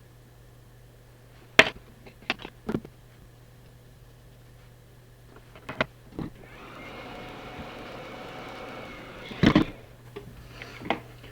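Sharp clicks and knocks of small handheld-console parts and tools being handled, with a louder cluster of knocks near the end. A soft steady hiss runs for about three seconds in the middle, over a low constant hum.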